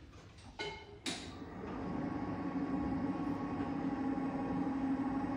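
Handi-Move ceiling-rail hoist's electric motor starting about a second in and then running with a steady hum, lifting the sling. Two short clicks come just before it starts.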